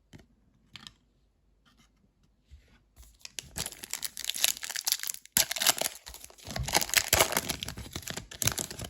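A trading card pack's wrapper being torn open and crinkled. After a few faint clicks, the tearing and crinkling start about three seconds in, with a brief pause about halfway.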